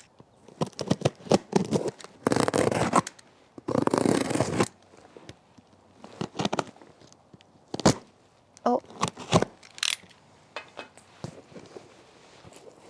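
Box cutter slicing through packing tape on a cardboard shipping box, with two longer strokes about two and four seconds in, then short scrapes and taps against the cardboard.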